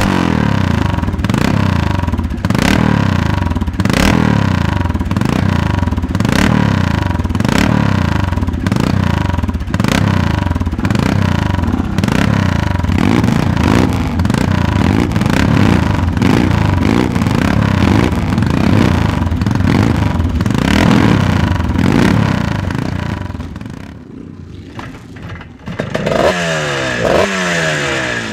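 Vintage twinshock motocross bike's engine revved over and over in quick throttle blips, rising and falling about one to two times a second. Near the end, after a short lull, a second classic scrambler is kick-started and revs.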